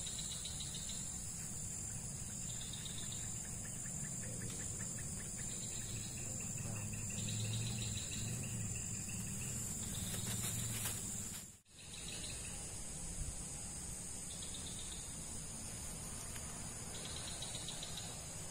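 Steady high-pitched shrilling of insects, with short higher calls now and then over a low background rumble. The sound cuts out for a moment about two-thirds of the way through.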